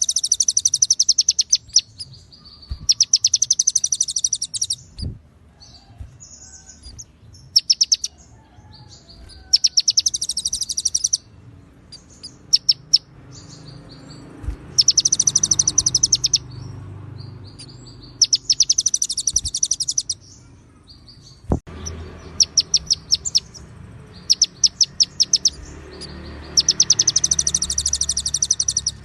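Konin songbird singing in repeated bursts of rapid, high trilled phrases, each about one to two seconds long with short pauses between, and scattered short chip notes in the gaps. A few faint sharp clicks sound in between.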